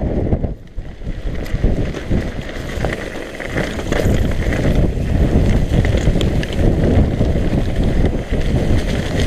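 Wind buffeting an action camera's microphone as a mountain bike rides fast down a dirt trail, with tyres rumbling over rough ground. The bike rattles in scattered clicks, more of them from about four seconds in.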